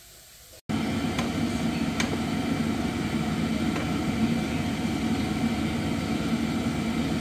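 A kitchen appliance fan hums steadily, with a constant low tone over an even whoosh, starting abruptly under a second in; two faint clicks sound soon after.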